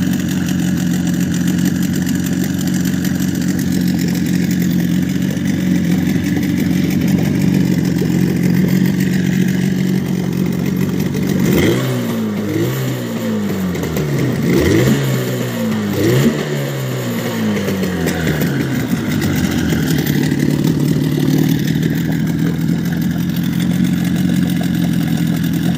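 HDX 30 outboard motor idling steadily while its carburetor is being tuned, mixture screw about two turns out. About halfway through, the throttle is blipped in several quick revs that rise and drop back, then it settles to a steady idle again without sneezing.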